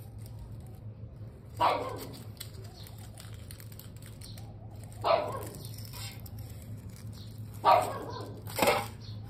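A male tortoise giving short squeaking mating calls while trying to mount a rusty metal stove pipe. Four calls in all, spaced a few seconds apart, with the last two close together near the end.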